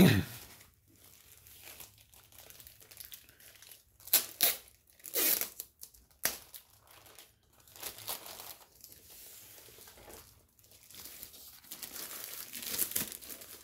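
Clear plastic dust bag crinkling in irregular bursts as a rolled diamond painting canvas is slid out of it, with a sharp thump right at the start.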